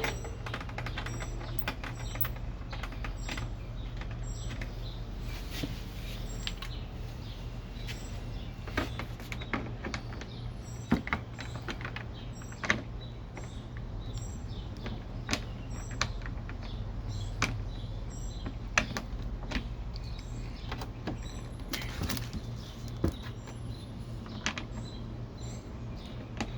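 Scattered light clicks and knocks of windshield mounting hardware being fitted back into a motorcycle fairing by hand, over a steady low hum.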